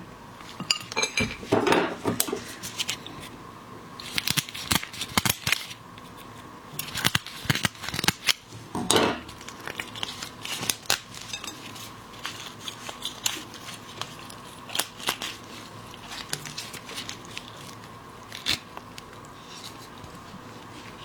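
Spiny lobster shell being broken open: a run of sharp cracks and snaps in clusters, loudest in the first half, with occasional clatter of utensils.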